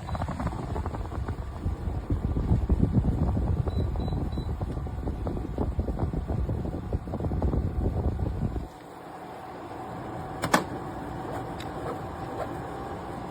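Portable air conditioner running. A loud, uneven rumble drops abruptly about nine seconds in to a quieter steady hum with a faint tone, followed by a single sharp click.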